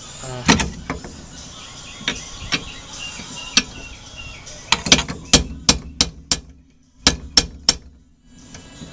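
Hammer driving a screwdriver against a stuck wheel-bearing inner race on the hub's axle shaft, working it loose. About a dozen sharp metal-on-metal blows with a brief ring, scattered at first, then coming in a quick run in the second half.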